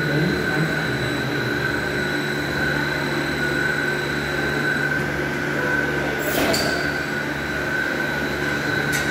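Automated barrel-handling machine running with a steady mechanical hum as it turns an oak wine barrel held in its steel clamp. A brief sharp noise comes about six seconds in, and a short click near the end.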